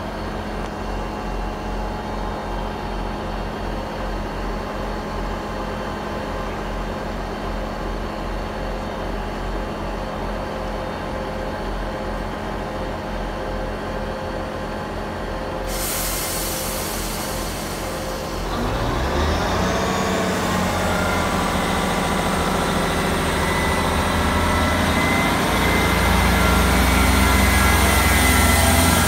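South Western Railway Class 159 diesel multiple unit idling at the platform, its underfloor Cummins diesel engines giving a steady low drone. About halfway through a sudden hiss of air starts as the brakes release, and a few seconds later the engines rev up with rising tones and the train pulls away, growing louder.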